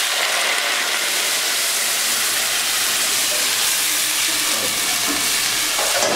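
Chicken pieces sizzling in a hot aluminium cooking pot on a stove: a steady hiss of frying with steam rising off the pot.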